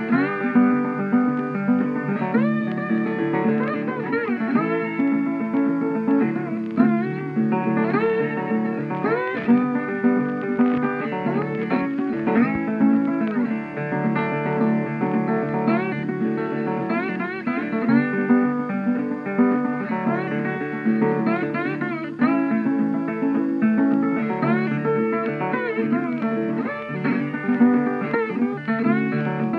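Background music with plucked guitar.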